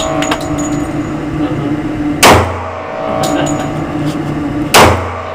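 Two shots from a Glock 10mm Auto pistol, about two and a half seconds apart, with a steady low hum underneath between them.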